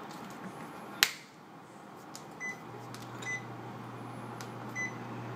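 A sharp click, then three short high electronic beeps from a glass-top electric hob's controls. A steady low hum sets in just after the first beep as the hob starts heating a pot of mirin.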